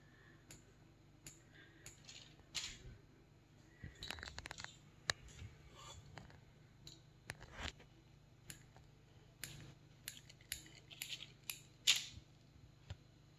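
Faint, scattered clicks and short scrapes of a metal squeeze-handle cookie scoop working dough against a stainless steel mixing bowl and releasing it. The sharpest click comes near the end.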